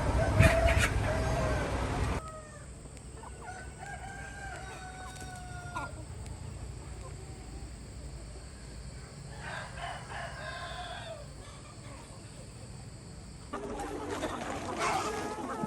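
Chickens clucking and roosters crowing, with two long drawn-out crows, one a few seconds in and another past the middle. The background noise level drops sharply about two seconds in and rises again near the end.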